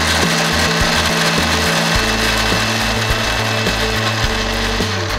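Electric mixer grinder (mixie) running at speed, grinding fresh coconut with a little milk into a paste for coconut milk; a steady whir.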